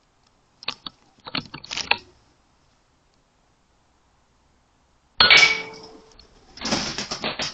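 A few light scratching clicks about a second in, then about five seconds in the sharp shot of an RTI Prophet P3 PCP air rifle with a short ringing tail. It is followed by irregular scuffling and pattering as the shot rat thrashes and drops off the beam.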